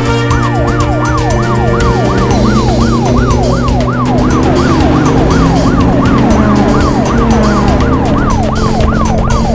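Cartoon police-car siren in a fast yelp pattern, each sweep jumping up and sliding down, about three a second, starting just after the opening. A steady music bed plays underneath.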